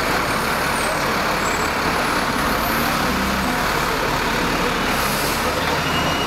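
Steady traffic noise of a city street, an even rush of passing and running vehicles.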